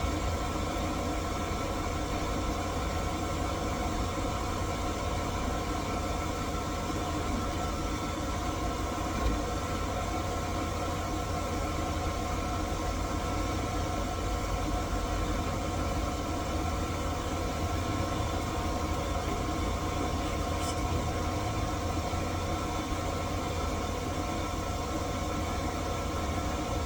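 Key-cutting machine's motor running steadily, a constant hum with a single small click about nine seconds in.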